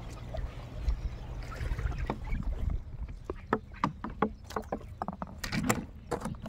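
Water splashing and dripping with irregular knocks as a homemade raft is paddled across a pond, over a low steady rumble. From about two and a half seconds in there is a quick, uneven run of sharp splashes and clicks.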